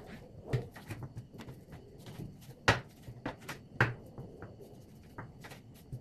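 Kitchen knife cutting raw bone-in meat on a wooden cutting board: irregular sharp knocks of the blade on the board, two louder ones about three and four seconds in, between quieter handling of the meat.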